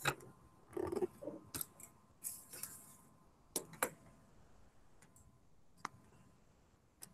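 Scattered sharp clicks and taps with a few brief rustles: things being handled close to a phone microphone.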